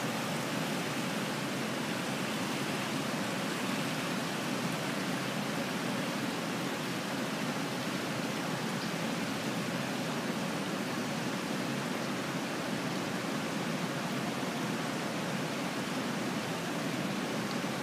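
Steady rushing noise of an indoor swimming pool hall, with no distinct splashes or other events standing out.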